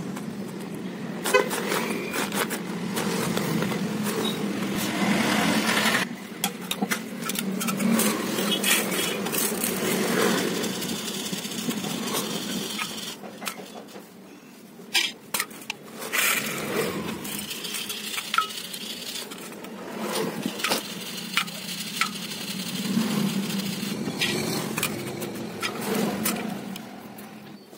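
Raw peanuts and small seeds rattling and clinking against a stainless steel plate and a wire spider skimmer as they are stirred and sifted by hand, with scattered sharp clicks throughout.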